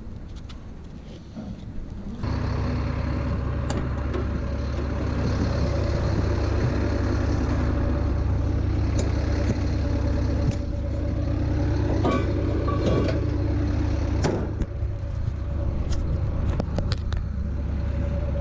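An engine running steadily, starting about two seconds in, with a few clicks and knocks over it.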